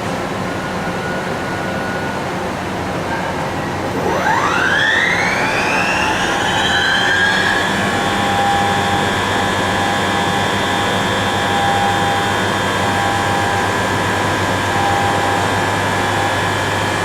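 Horizontal boring mill spindle spinning up about four seconds in, its geared-head whine rising in pitch over three seconds, then running steady at top speed of about 3,000 RPM over a steady machine hum.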